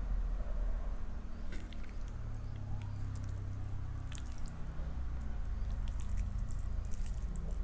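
Close-up eating sounds: soft wet squishes and small scattered clicks of rice and curry being eaten.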